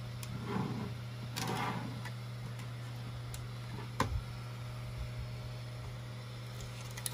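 Handling noise from a large, hollow PLA 3D print being turned and shifted about on a table: faint rustles and scrapes, a single knock about four seconds in, and small clicks near the end, over a steady low hum.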